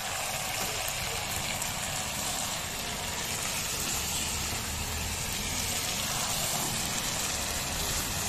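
Chicken karahi frying hard in the pan over a gas burner turned up to high flame, a steady sizzling hiss with a low rumble under it: the final restaurant-style roasting (bhunai) of the dish.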